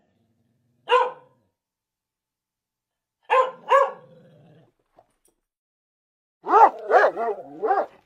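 Dog barking: a single bark, then two in quick succession, then a rapid run of about five barks, with silence in between.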